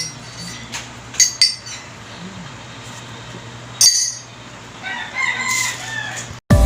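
Tableware clinks sharply a few times, with a short ring after each, as a cup of ginger tea is handled. About five seconds in, a rooster crows in the background. Music starts right at the end.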